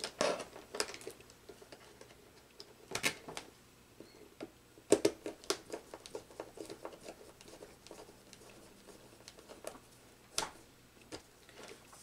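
Scattered small clicks and taps of wire leads being handled and pushed into terminal blocks on a motor-control trainer board.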